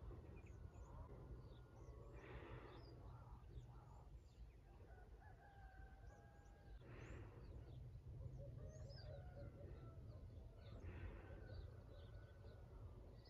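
Faint dawn birdsong: many small birds chirping, with roosters crowing now and then, over a low steady rumble.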